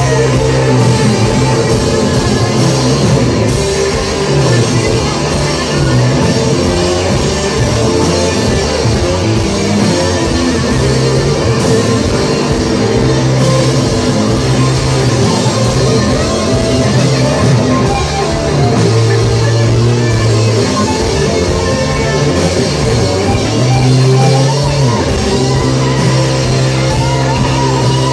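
Live psychedelic rock band playing loud: several electric guitars and a drum kit, with no vocals.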